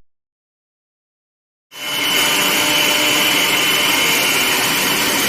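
After about a second and a half of silence, an electric motor-driven blower comes in and runs steadily, an even whirring rush with a high steady whine.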